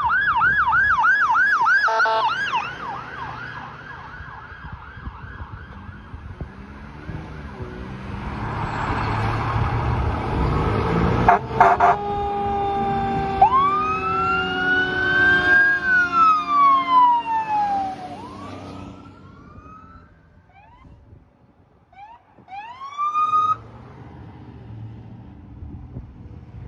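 Emergency vehicle sirens on the move: first an electronic siren in a fast wavering yelp, then traffic passing. About twelve seconds in, air horn blasts and a mechanical fire-engine siren winding up and then winding down, followed near the end by a few short rising siren chirps.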